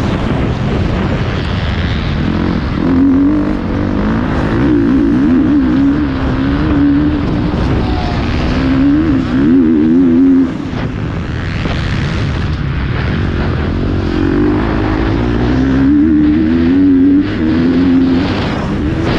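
Motocross bike engine revving hard on a lap of the track, its pitch rising and falling constantly as the throttle is worked through shifts, jumps and corners. A sudden dip in level comes about halfway through.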